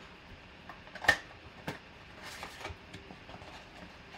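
Cardboard trading-card mega box being opened by hand. A sharp snap of cardboard about a second in, a smaller click, then a brief rustle of cardboard sliding as the inner sleeve is pulled out.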